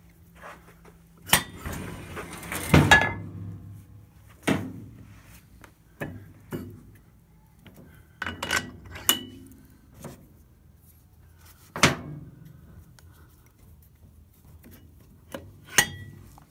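Sporadic metal clanks and clinks, a few ringing briefly, as a large steel brake rotor and a heavy steel centering cup are fitted together on a brake lathe arbor. A cluster of rattling clanks comes about two to three seconds in, with single knocks spread through the rest.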